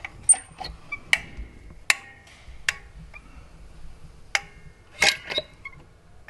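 Caulking gun being worked while laying a bead of silicone: about eight sharp metallic clicks at uneven intervals, a couple of them ringing briefly, with a close double click about five seconds in.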